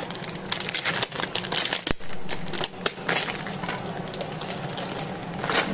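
Foil and plastic food packaging crinkling as hands handle and unwrap it, a quick run of sharp crackles with a louder rustle near the end.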